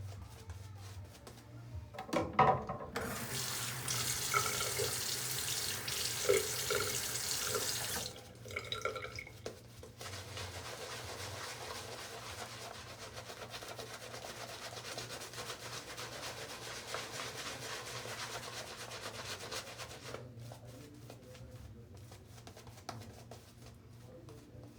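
Water tap running into a sink: a strong, steady rush from about three seconds in until about eight seconds in, then a quieter flow of water.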